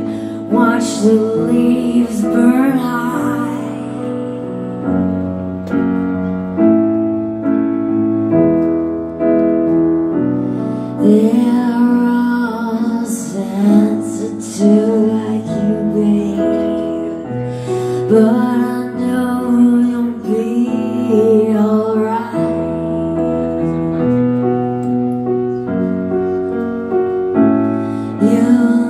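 Live band playing a slow song: a woman singing over sustained Mellotron keyboard chords that change every second or two, with a few sharp percussion hits.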